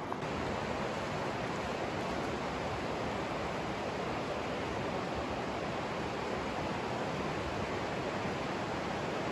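The Virgin River rushing steadily through the canyon, an even wash of water noise.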